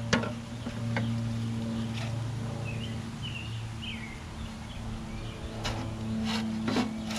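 A few short bird chirps over a steady low hum, with several light clicks and knocks scattered through.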